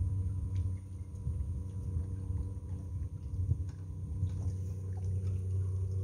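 Solar-powered boat under way: its electric drive hums steadily over a low rumble.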